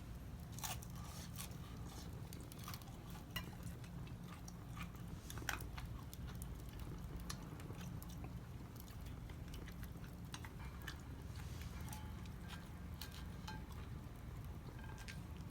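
Wood fire crackling in a small fire pit: irregular sharp pops and snaps over a low, steady rumble.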